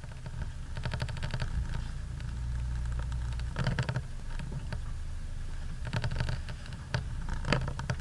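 A 4x4's engine running low and steady at crawling speed on a rough dirt track, heard from inside the cabin, with bursts of clattering knocks and rattles about a second in, near the middle, and twice near the end as the vehicle rides over bumps.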